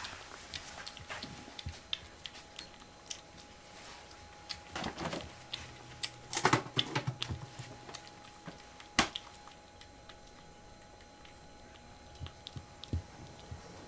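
Scattered light clicks and short scratchy rustles, busiest and loudest about five to seven seconds in, with one sharp tap about nine seconds in.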